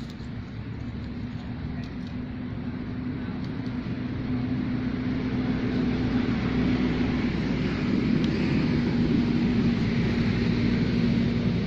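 A motor engine running with a steady low hum over a rumble, growing gradually louder through the first two-thirds and then holding.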